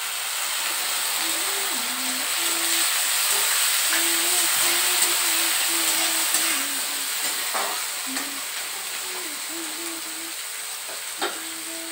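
Chopped tomatoes and onions frying in hot oil in a metal kadai, a steady sizzle, loudest in the middle and easing off near the end. A metal spatula stirs through them, with a few light knocks against the pan.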